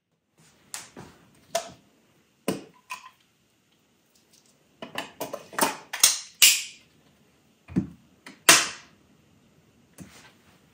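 Handling noises of a green-beam laser level and its plastic hard case: a string of irregular clicks, knocks and short scrapes. There is a soft thump near the end, followed by the loudest scrape, as the level is set down on a stone windowsill.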